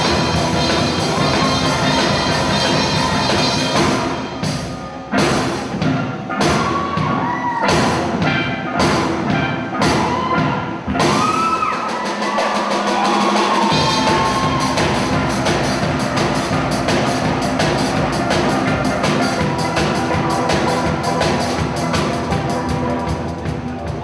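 Steel orchestra playing a tune on steel pans. About four seconds in, the band plays a stop-start run of accented hits with short gaps between them. The bass drops out briefly around twelve seconds, and the full band comes back in around fourteen seconds.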